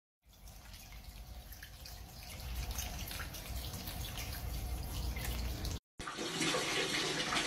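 Water in a flooded bathroom floor trap, heard as a low rumble with scattered small drips and splashes. After a brief break, a tap runs a steady stream into a plastic bucket with a brighter, even splashing.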